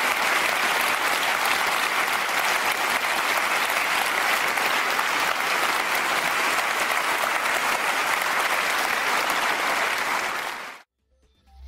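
Audience applauding steadily. The clapping cuts off abruptly about a second before the end.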